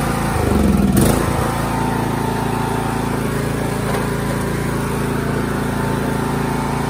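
Craftsman T110 riding mower's engine running steadily at a constant speed. About a second in there is a brief swell in level and a single sharp knock.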